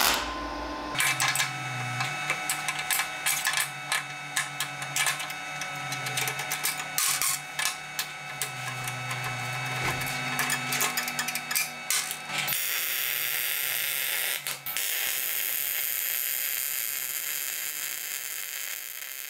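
Wire-feed welder arc crackling irregularly as beads are laid on steel tubing and bracketry, over a steady low electrical hum. After about twelve seconds the crackle gives way to a smoother, steadier hiss.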